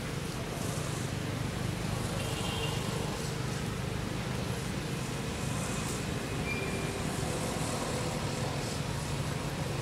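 A steady, even low motor drone like road traffic, with a couple of faint short high tones over it.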